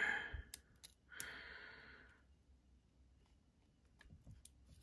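A man's breathy sigh about a second in, lasting about a second, after a brief murmur at the start. Faint small clicks of a bit driver against a folding knife's screw follow.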